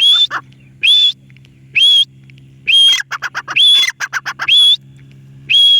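Parrot whistling: seven loud, short calls about once a second, each rising quickly and holding, with a flurry of quick chirps between calls in the middle.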